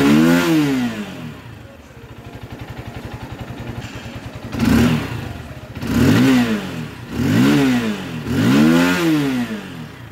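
Hero Karizma XMR 210's single-cylinder engine revved in neutral. A rev dies away at the start into a steady idle for a few seconds, then four quick throttle blips follow, each rising and falling in pitch. The exhaust note is loud and sharp.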